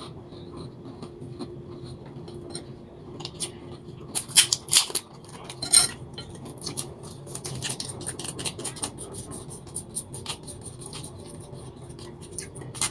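A small plastic knife scraping butter out of a single-serve packet and spreading it on toast: a steady run of light clicks and scrapes, with a few louder ones about four to six seconds in.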